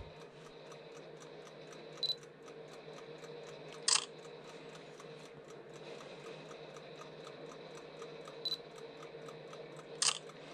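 Vintage Eastman Kodak mechanical film-development timer ticking steadily, about four ticks a second. Twice a digital camera gives a short focus beep and, under two seconds later, its shutter clicks.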